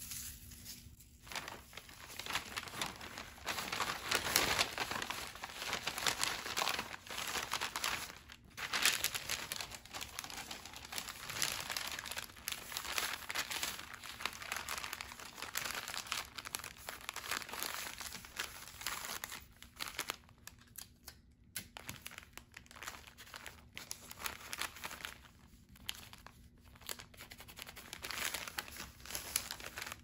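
Brown kraft paper bag handled and folded by hand, crinkling and rustling almost without a break, with a few short pauses.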